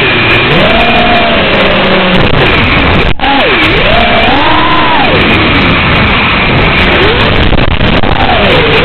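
FPV quadcopter motors whining, their pitch swinging smoothly up and down with the throttle, under a heavy steady hiss from the video link's audio. The audio drops out for an instant about three seconds in.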